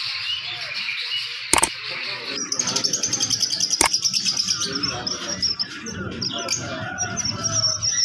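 Many caged birds chirping and twittering together. About two and a half seconds in, the sound changes to a louder run of rapid high chirps. Two sharp clicks cut through the chirping.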